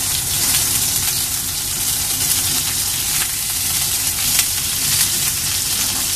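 Hot oil sizzling steadily in a nonstick pan as whole peeled boiled eggs fry in it, with small crackles and spatters through the hiss.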